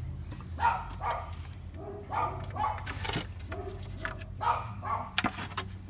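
A dog barking in several short bouts, over a steady low hum, with a few sharp knocks in the second half.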